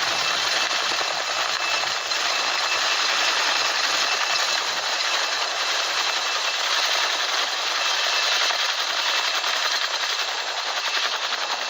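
Helicopter running close by: a fast, even rotor chop over a steady turbine whine, the beat growing sharper near the end.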